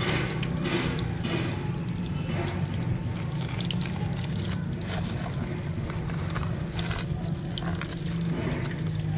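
Potato chips deep-frying in hot oil, a steady sizzle with scattered clicks and knocks of utensils and a steady low hum underneath.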